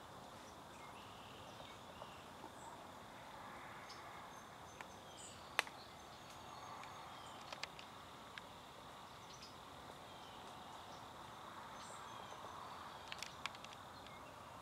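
Woodpecker knocking on a tree branch: scattered single knocks, the loudest about five and a half seconds in and a quick cluster of them near the end. Under them a steady insect trill and a few faint bird chirps.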